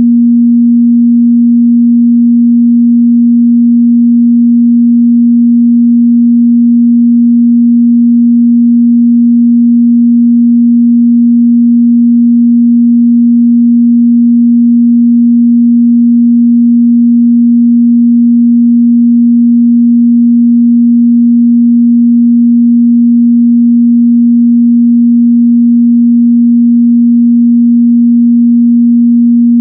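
A steady, loud 237 Hz sine-wave test tone, one pure mid-bass pitch held without change.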